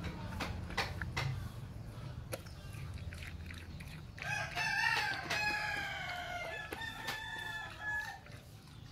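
A rooster crows once, a single call of about four seconds beginning about four seconds in. A dog chewing pieces of watermelon makes short clicks alongside.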